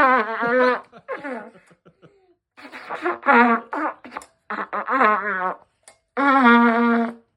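Trumpet played as a string of buzzy, fart-like notes in a tune. There are about six separate notes, several wobbling and bending in pitch, and the last one is held steady.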